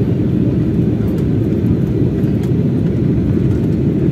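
Steady low rumble of jet engines and rushing air inside an Airbus A320's passenger cabin, heard on the descent to land.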